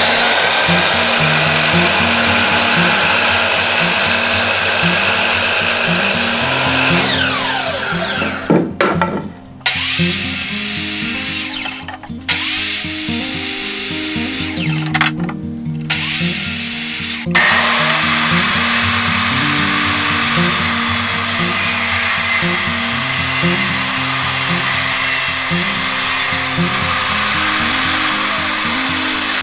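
Power miter saw running and cutting wood in several separate runs, its blade spinning down with a falling whine about eight seconds in. Background music with a steady bass line plays under it throughout.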